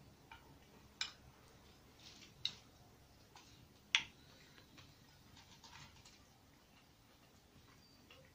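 Metal spoon clinking and scraping against a ceramic bowl while scooping curry: a few faint, sharp clicks, the clearest about one, two and a half and four seconds in.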